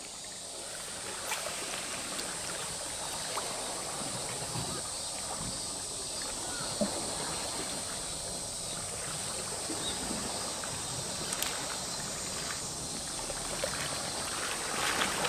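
Seawater lapping and trickling against a rocky shoreline: a steady wash with a few faint ticks.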